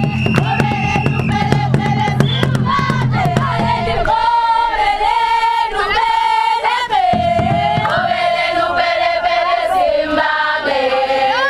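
A group of women singing a traditional song together in chorus. Sharp beats run under the first few seconds and then stop, leaving the voices singing alone on long held notes.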